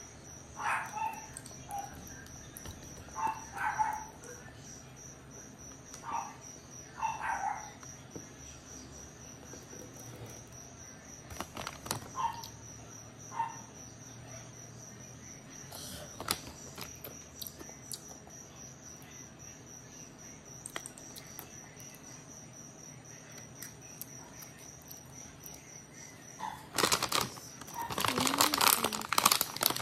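Foil snack bag of chips crinkling loudly near the end, after a few soft chewing crunches and scattered clicks. A steady, high-pitched pulsing chirp runs in the background until the crinkling starts.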